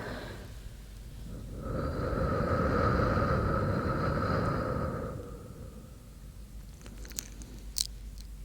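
A long, slow breath blown close into the microphone, about three seconds long, after a softer breath at the start. Near the end come small, sharp wet mouth clicks.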